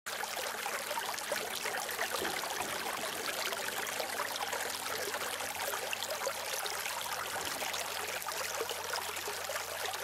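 Bridge Creek running into a millpond: a steady, even rush of flowing creek water.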